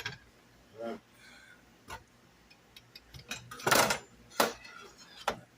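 Kitchen handling sounds: a few scattered knocks and clicks of utensils and cookware, with a short louder scrape or rustle a little under four seconds in.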